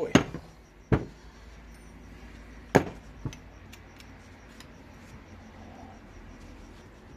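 Sharp metallic clinks and knocks of hand tools on a rusted brake caliper while its bleeder screw is being worked loose. Four short knocks come in the first three and a half seconds, the loudest near three seconds in.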